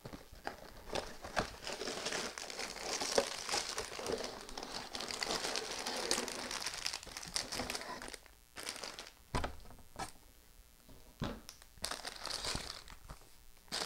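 Clear plastic bags of LEGO bricks crinkling as they are handled and pulled from an opened cardboard box. The crinkling is dense for the first half, then thins to scattered clicks and a couple of soft thumps.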